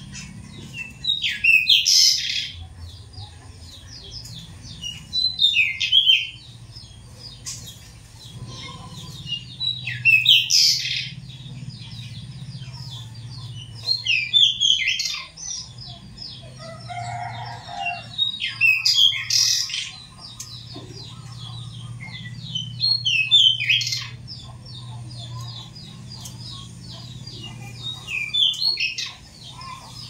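Caged pied bushchat (decu) singing short, bright, high phrases about every four to five seconds, with faint quick twittering between phrases. A low steady hum runs underneath.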